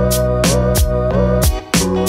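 Background music with a steady beat of about two strokes a second, bass notes and a melody, dipping briefly near the end.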